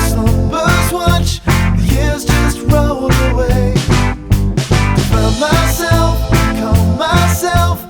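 Background pop-rock song with a steady drum beat, bass and singing.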